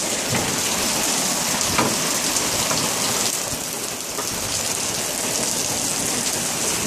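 Rain from a thunderstorm falling steadily, an even hiss with a few sharper drop hits close by.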